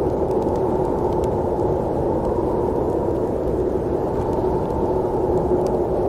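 Snowstorm wind blowing steadily, a muffled, deep rushing noise with a few faint ticks.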